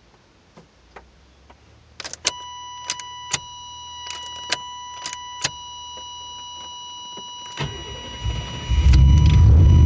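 A stalled car engine sits silent, with a few faint clicks. About two seconds in, a steady electronic warning tone comes on, and sharp clicks sound over it. Near the end the starter cranks for about a second and the engine catches and runs.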